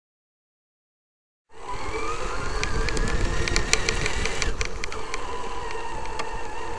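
Silence for about a second and a half, then a Traxxas X-Maxx electric RC monster truck driving on grass, heard from a camera mounted on it. Its brushless motor whine rises, then settles lower near the end, over a low rumble with scattered clicks.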